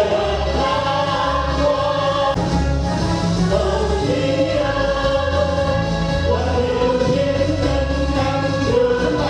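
A group of singers sings a song together in long held notes over a backing track with a repeating bass line.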